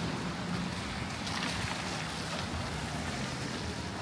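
Steady street ambience in the rain: an even hiss of rain and wet traffic noise with a low background rumble.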